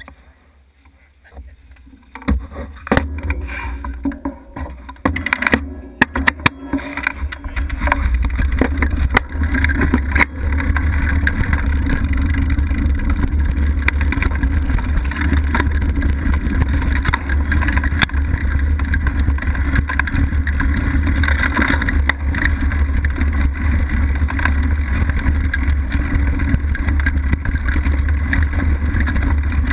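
Mountain bike riding down a leaf-covered dirt trail, heard from a camera on the moving bike: knocks and rattles of the bike as it gets going in the first several seconds, then a steady loud rush of wind on the microphone and tyres rolling over dirt and leaves from about eight seconds in.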